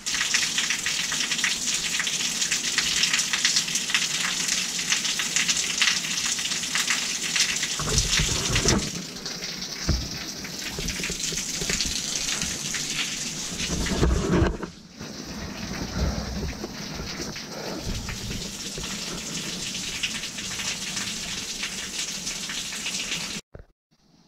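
Water falling and splashing in a loud, steady hiss, with a few low thuds about a third and two thirds of the way through. It cuts off suddenly near the end.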